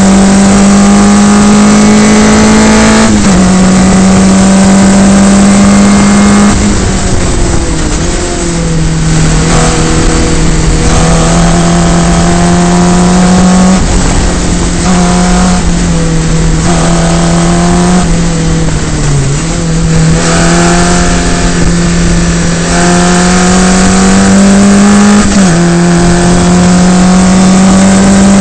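Single-seater formula race car engine at high revs, heard from onboard: the pitch climbs steadily and drops sharply at each upshift, about three seconds in and again near the end. In between it dips as the driver lifts off the throttle for corners.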